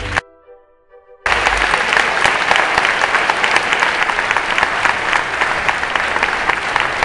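Music stops at the start, and after about a second's pause an audience applauds, with many hands clapping at once.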